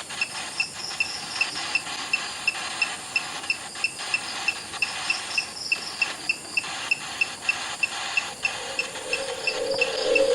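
Night insects: a cricket chirping steadily, about three short chirps a second, over a constant high insect hiss. A low hum comes in near the end.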